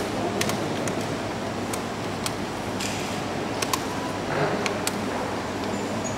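Chess pieces being set down on the board and the chess clock's buttons being pressed in quick, irregular succession: about ten sharp clicks and knocks over a steady room noise.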